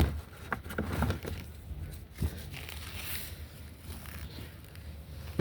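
Fireworks packaging being handled: plastic wrap and cardboard rustling and crinkling, with scattered clicks and a couple of light knocks.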